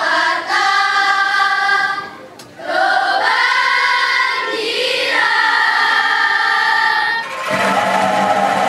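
Children's choir singing long held phrases, with a short break about two seconds in. About seven and a half seconds in, the singing gives way to a massed tremolo of many bamboo angklungs shaken together in a sustained chord.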